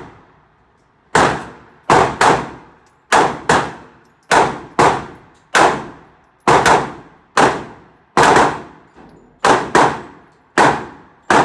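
A rapid series of gunshots at a shooting range, about sixteen sharp reports, many in quick pairs, each with a short ringing decay.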